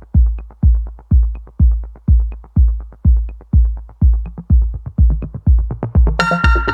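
Background electronic dance music: a deep, steady kick drum beating about twice a second, with a synth melody joining near the end.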